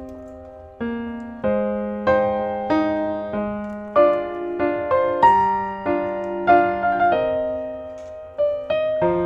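Background piano music: a slow melody of single notes and chords, each struck and left to ring out.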